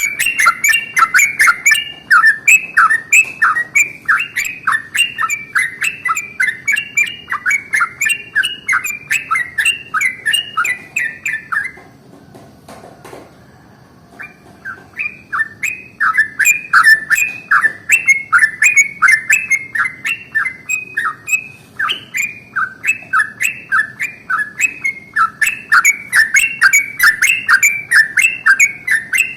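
Yellow-vented bulbul (trucukan) singing its long rapid 'ropel' song: a quick, even string of loud, sharp notes, several a second. It breaks off for about two seconds just before the middle, then resumes.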